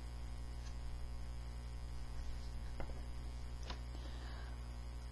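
Steady low electrical mains hum, with two faint clicks around the middle as the stiff cardboard pages of a board book are handled and turned.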